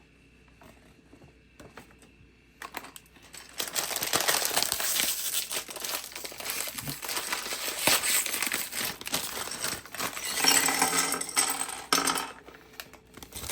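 Toy packaging being crinkled and torn open, a dense crackling rustle that starts about three seconds in and stops shortly before the end.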